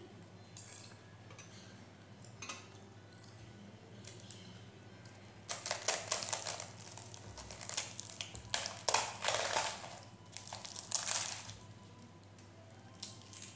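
Fingers tearing pieces off a flaky, layered Dhakai paratha on a steel plate: a run of short rustling tears and crumbling after a few quieter seconds.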